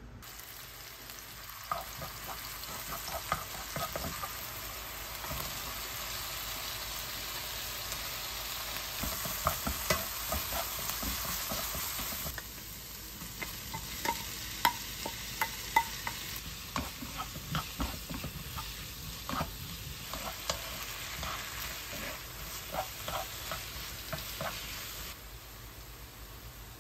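Oil sizzling in a nonstick wok as garlic and then sliced onion, carrot and Korean zucchini stir-fry, with a wooden spoon stirring and clicking against the pan. The sizzle changes about halfway through and fades near the end.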